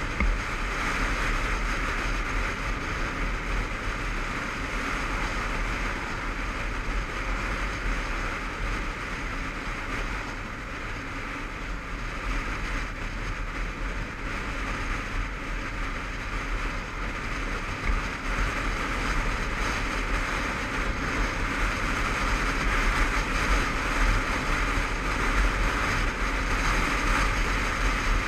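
Honda CBF500 parallel-twin motorcycle riding at road speed, its engine mixed with steady wind and road noise as heard from a helmet-mounted camera; louder in the last few seconds.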